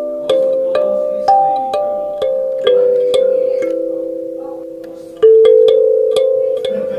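Music: a slow melody of struck, bell-like notes, about two a second, each ringing on and fading. A louder note about five seconds in.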